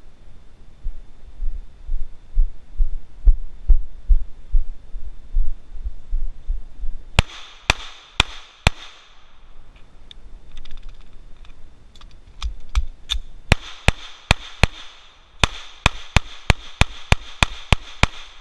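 A Springfield .45 pistol fired repeatedly: after several seconds of low thumping, about four shots come, then a faster string, then about ten rapid shots, roughly three or four a second, near the end. A bright metallic ring follows some of the shots as bullets hit a broken Sabian crash cymbal.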